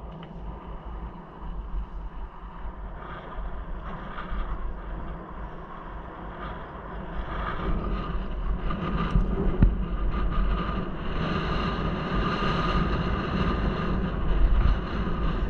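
Wind buffeting the microphone over the rumble and rattle of mountain-bike tyres on a rough, cracked gravel track during a descent. It gets louder about halfway through, and there is a single sharp knock about two-thirds of the way in.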